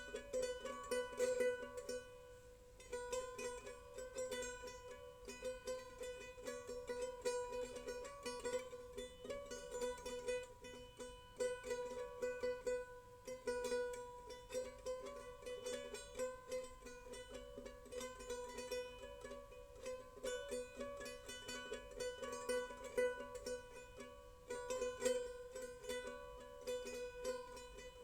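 Background music: a quick, bright plucked-string tune, like mandolin or ukulele, with a steady rhythm.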